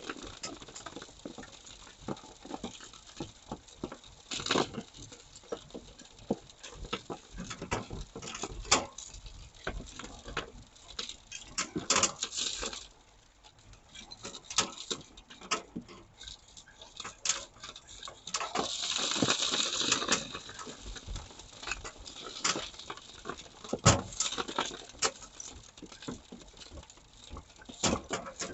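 Soil and small stones falling from a homemade shaker table and pattering and clattering down a sloped corrugated sheet onto a pile. The knocks come irregularly, with heavier rushes of material about twelve seconds in and again around nineteen to twenty seconds.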